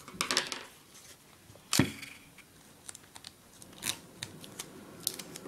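Construction paper being handled, with scattered rustles and crackles and one sharp knock about two seconds in.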